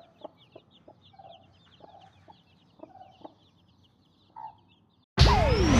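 Newly hatched Bresse chicks peeping rapidly and continuously, with the broody Ataks hen clucking softly to them. About five seconds in, a loud whoosh sound effect with a falling tone cuts in over them.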